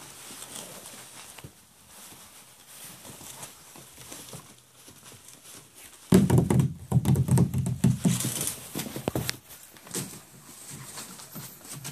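Five-week-old puppies scrambling through shredded paper: light rustling and patter of paws, then a louder stretch of close thuds and rustling from about six to nine seconds in.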